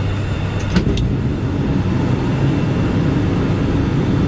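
Steady cockpit noise of an ATR 72-600 in flight: its turboprop engines and propellers run with a constant low hum under airflow noise. A few short clicks about a second in.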